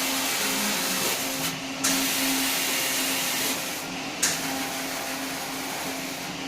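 Rotary bottle washing machine running: a steady hiss of washing jets over a motor hum. The hiss cuts out briefly about every two and a half seconds and comes back with a sharp burst, twice.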